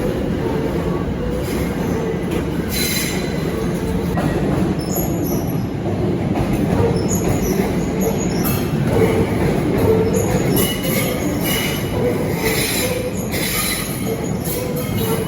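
A train moving over the rails, its steady rumble broken by high-pitched wheel squeals that come and go several times.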